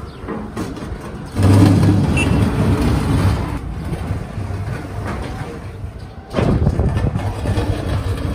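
Diesel engines of heavy roadworks machinery, an excavator and a truck, running with a steady low rumble that gets suddenly louder about a second and a half in and again near the end.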